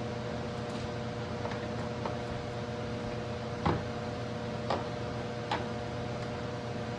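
A few sharp clicks and knocks of parts being handled and fitted, three louder ones spread through the middle, over a steady hum.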